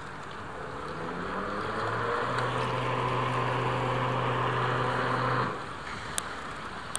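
A motorboat engine's hum rising in pitch over about a second, holding steady, then cutting off suddenly.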